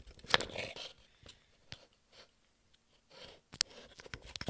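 A small cabinet being opened and its contents handled: a scrape and a few light knocks just after the start, a sharp click later on, and faint rustling near the end.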